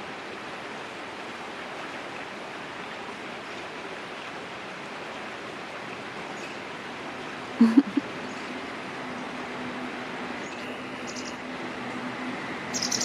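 A steady, even rush of background noise, like running water. About two-thirds of the way through comes one short, low, hummed 'un' from a person, and near the end a few faint, high, short chirps of a white wagtail.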